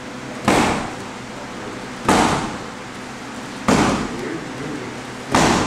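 Four right Muay Thai roundhouse kicks landing on a freestanding heavy bag, one sharp impact about every second and a half.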